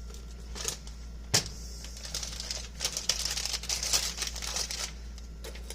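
Chives being sprinkled from a container over the potatoes: a sharp click about a second in, then a few seconds of dense, crinkly rattling.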